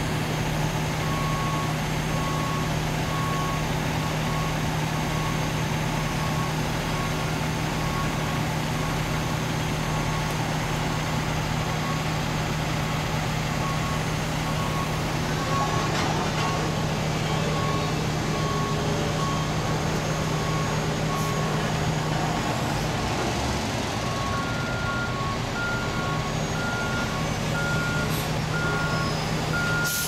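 Heavy diesel engines of paving-crew vehicles (dump truck and asphalt roller) running steadily, with a reversing alarm beeping about once a second. A second, higher-pitched backup alarm joins in near the end.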